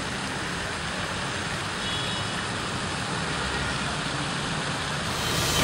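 Steady outdoor city ambience: a constant, even noise of distant road traffic.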